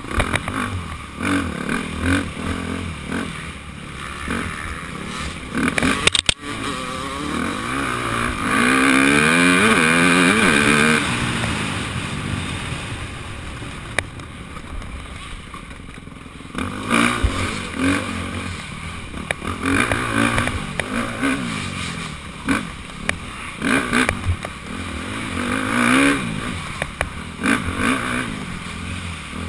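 Dirt bike engine revving up and down as it is ridden hard over rough trail, picked up by a helmet-mounted camera, with the rattle and clatter of bumps along the way. It is loudest about eight to eleven seconds in, with a long rising rev.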